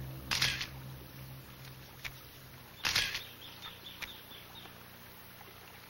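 Single-lens reflex camera shutter firing twice, each shot a short mechanical click-and-wind, a couple of seconds apart, with fainter clicks between, over a low steady hum that fades away.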